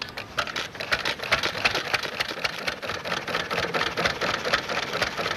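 Single-cylinder hit-and-miss stationary engine catching as its flywheel is spun by hand, then running with a rapid, even clatter.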